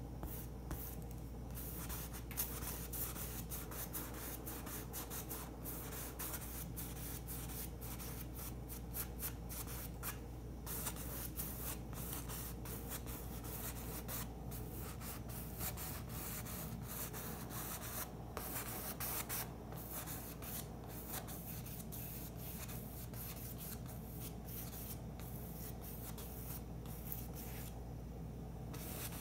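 Paintbrush scrubbing and dabbing paint onto a stretched canvas: a rapid, irregular scratchy rubbing over a low steady hum.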